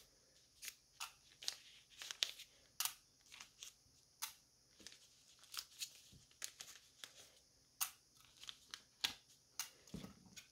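Faint, scattered small clicks and paper rustles: sewing pins being pulled out of a paper pattern pinned to fabric and dropped into a pin dish.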